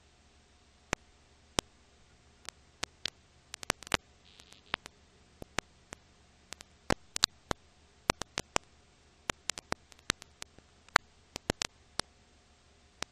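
Irregular clicks and pops, a few a second and unevenly spaced, over a faint steady hum and hiss: the crackle of an old film transfer with no sound recorded.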